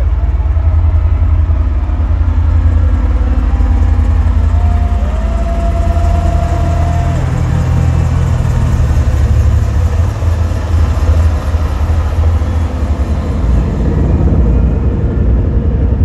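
Live rock concert in an arena, picked up by a phone microphone as a loud, bass-heavy, distorted rumble, with one note that slides up and is held for about two seconds around five seconds in.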